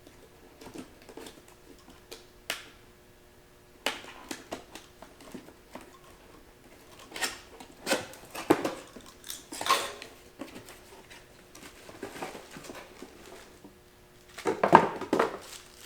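A box being opened and the packaging handled: scattered taps, scrapes and rustles, with a louder burst of clatter and rustling near the end.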